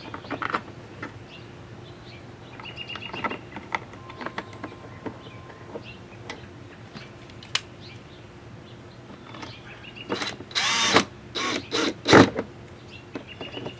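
A DeWalt cordless drill/driver driving screws back through a plastic splash guard into the wheel-well liner, in several short bursts about ten seconds in. Before that there are only faint clicks and taps of the guard being handled.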